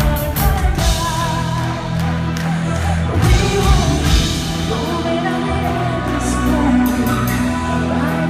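Symphonic metal band playing live, with a woman singing lead over the full band and drums.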